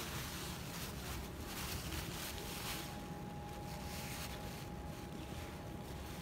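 Paper towel rustling and crinkling as fingers rub leftover eggshell off an egg soaked in vinegar, over a steady low rumble.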